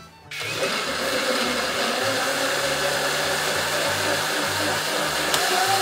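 Countertop electric blender switched on about a third of a second in and running steadily, blending strawberries and milk. Its motor note rises a little near the end.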